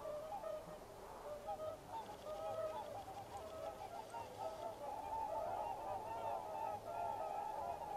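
A flock of swans calling, many short honking calls overlapping, growing denser from about halfway through.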